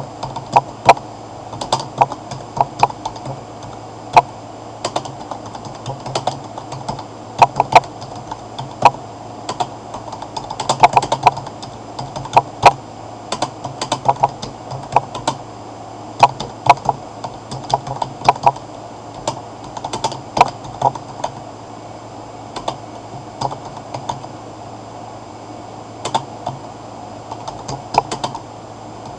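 Computer keyboard keys clicking in quick irregular runs as a paragraph is typed, broken by a few short pauses.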